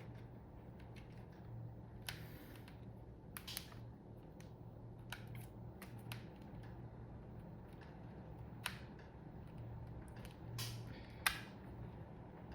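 Scattered, irregular plastic clicks and taps from a mechanical keyboard being handled and taken apart, the sharpest snap near the end, over a low steady hum.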